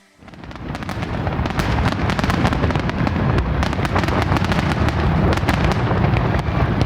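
Fireworks going off in a dense barrage: many rapid pops and bangs run together over a continuous low rumble, swelling up over the first second.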